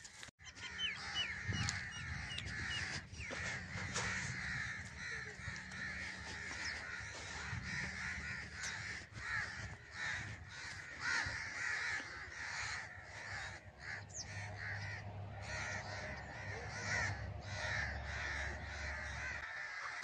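Crows cawing over and over, many short calls overlapping.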